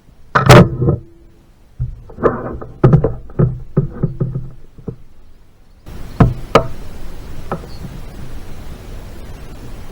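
A series of knocks: one loud knock, then a quick run of about ten more, and a steady rushing noise setting in about six seconds in with three more knocks.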